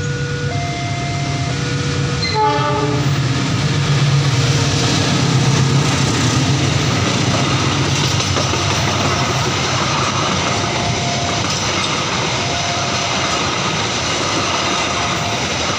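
CC 206 diesel-electric locomotive and its passenger train passing close by at a level crossing. The crossing's two-tone electronic warning alarm sounds at first. Then the locomotive's deep engine rumble swells as it goes by, followed by steady wheel-on-rail noise from the coaches, with the alarm still faintly repeating.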